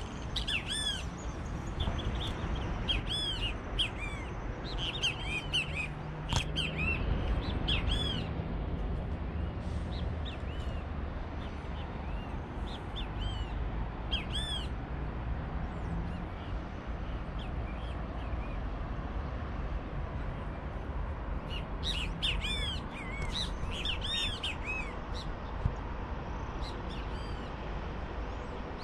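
Birds calling in bursts of short, sharp, arched chirps, busiest in the first several seconds and again about three-quarters of the way through, over a steady low background rumble.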